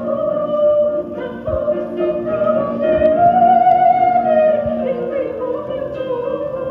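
A woman singing opera solo in a full voice with vibrato, holding long notes that rise and then fall.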